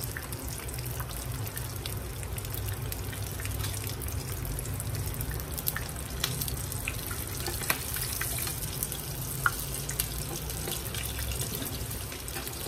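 Water running steadily from a tap into a sink, with a few sharp clicks in the middle.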